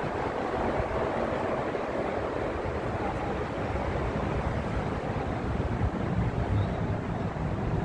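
Steady road-traffic noise: a constant rush, with a low rumble that grows stronger in the last few seconds.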